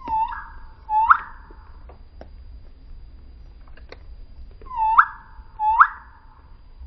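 Rain quail calling: two pairs of loud whistled notes, each note ending in a sharp upward flick, the second pair about four seconds after the first.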